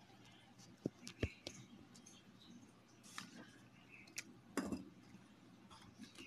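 Faint desk handling noise: a few scattered sharp clicks and taps, the loudest about a second in, as pens are picked up and put down on a notebook.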